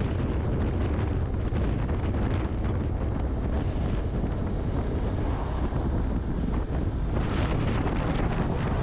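Wind buffeting a camera microphone on a motorcycle at highway speed, over a steady low rumble of engine and road. About seven seconds in the hiss grows brighter.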